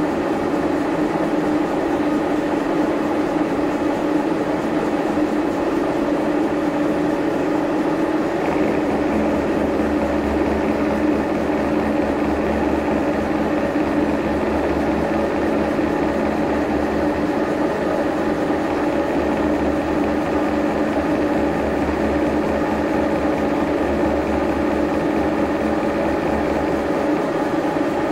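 Horizontal milling machine running, its arbor-mounted slotting cutter climb milling a slot in a metal block: a steady machine drone with a lower rumble joining about eight seconds in and dropping away near the end. The freshly reground cutter is cutting evenly.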